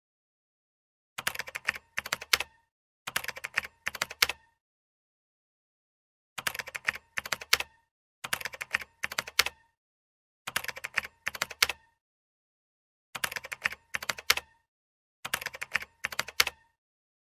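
Keyboard typing sound effect: seven short bursts of rapid key clicks, each about a second long, separated by complete silence.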